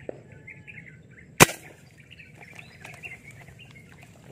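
A single sharp, loud shot from a fishing airgun about a second and a half in, fired at fish near the surface. Birds chirp in the background throughout.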